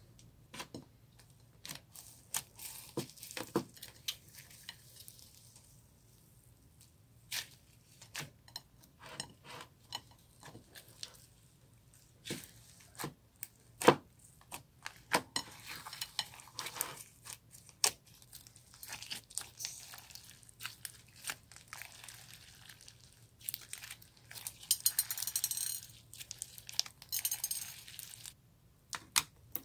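Glossy slime being squeezed and kneaded by hand, giving off irregular sticky clicks and pops of trapped air, with denser crackling about halfway through and again near the end.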